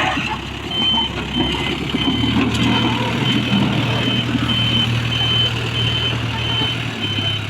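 JCB 3DX backhoe loader's diesel engine running, with its reversing alarm beeping evenly, a short high beep about every half second, from about a second in.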